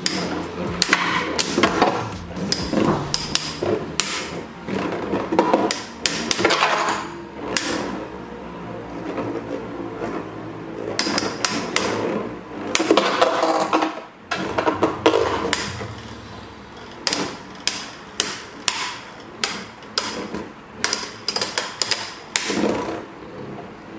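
Two Infinity Nado metal spinning tops battling in a plastic stadium, giving repeated sharp, irregular metallic clacks as they collide. The clashes come thick and fast at first and grow more spaced out in the second half, with a last cluster near the end.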